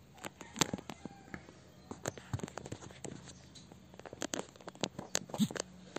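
Faint, irregular clicks and crackles scattered throughout, with no voice.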